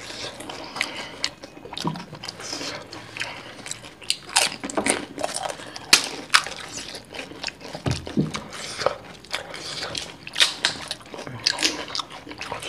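Two people biting and chewing crisp fuchka (pani puri) shells filled with sour water: irregular crunches and crackles with wet chewing sounds.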